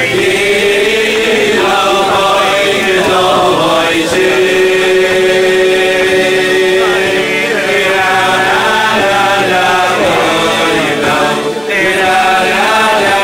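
A group of men's voices singing a Hasidic niggun, with long held notes.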